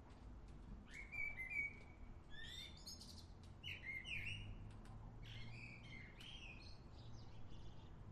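A songbird singing: several short phrases of quick chirps and warbles, starting about a second in.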